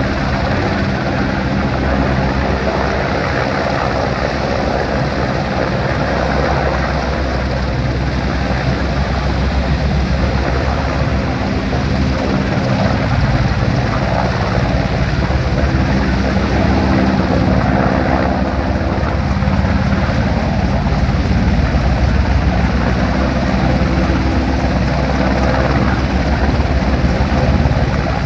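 EH-101 Merlin military helicopter hovering low over the sea: a steady drone of rotors and engines over the rushing of its rotor wash, growing a little louder as it draws nearer.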